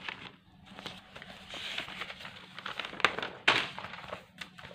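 Paper rustling and crackling as notebook pages and a printed test-paper book are handled and turned, with two sharper crackles about three seconds in.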